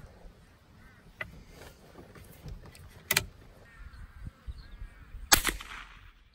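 .22 rifle shots: two sharp cracks, about three and five seconds in, the second followed by a short echo.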